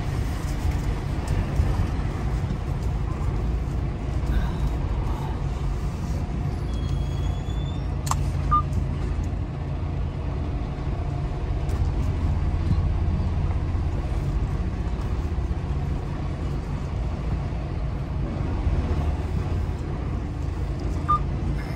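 Semi-truck diesel engine running steadily at low speed, heard from inside the cab as the truck creeps across a rough gravel yard, with a sharp knock about eight seconds in.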